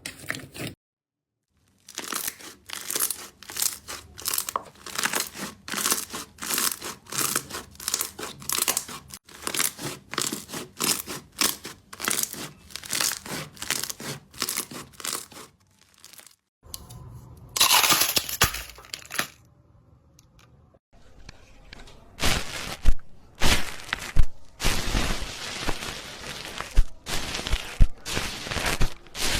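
Crunchy slime being squeezed and pressed by hand, giving a crackling, crinkling sound in repeated strokes about two a second. Partway through there is a short louder rustling rush, then a pause before the crackling resumes.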